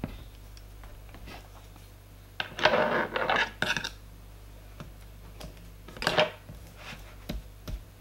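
Hands handling a laptop LCD panel at its display-cable connector and tape: a rustling, scraping burst about two and a half seconds in lasting over a second, a shorter one about six seconds in, and a few light clicks between.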